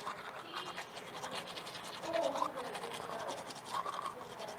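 Faint low voices about two seconds in and again near the end, over a fast, fine scratching or rubbing noise.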